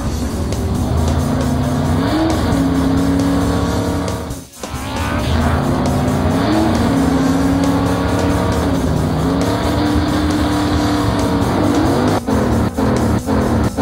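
Cartoon car engine sound effect revving, its pitch gliding up and holding several times, over background music. The sound cuts out briefly about four and a half seconds in, and there are a few short breaks near the end.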